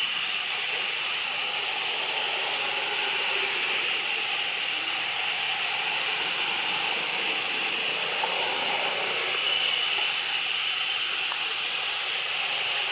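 A steady high-pitched hiss that holds evenly throughout.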